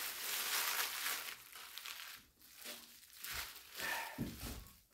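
Clear plastic wrap crinkling and rustling as it is pulled off a radio set. It is loudest in the first second and a half, with a soft low bump about four seconds in.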